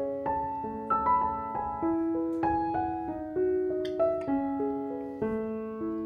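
Background music: a gentle piano melody, notes struck about two a second.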